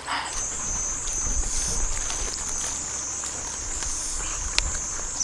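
A steady high-pitched insect drone in rural vegetation, with low wind rumble on the microphone and one sharp click about four and a half seconds in.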